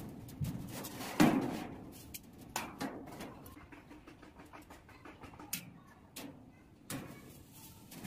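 Steel plates of a boat hull clanking as they are handled and leaned on: one loud bang with a short ring about a second in, then several lighter knocks.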